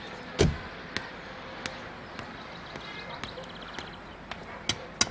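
A Honda Civic car door slams shut about half a second in, with a heavy low thud. A few light steps and clicks follow, and two sharp clicks near the end as another car door is opened.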